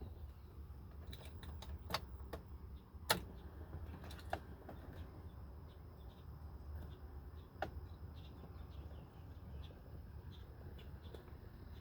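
Scattered sharp clicks, the loudest about three seconds in, with fainter ticks between them, over a low steady hum.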